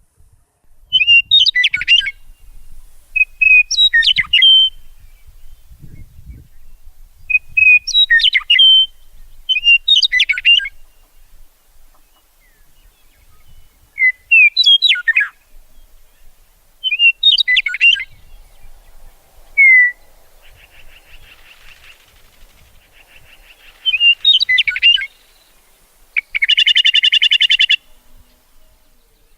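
Songbird singing short chirping phrases every two to three seconds, with a fainter buzzing trill in the middle and a loud, rapid buzzy trill near the end.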